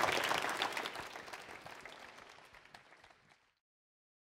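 Audience applauding, the clapping fading away over about three and a half seconds.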